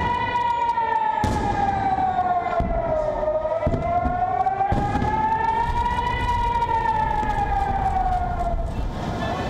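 Civil-defence air-raid siren wailing, its pitch sliding slowly down, back up and down again about every six seconds. It is sounding as a rocket-attack alert while rockets streak overhead.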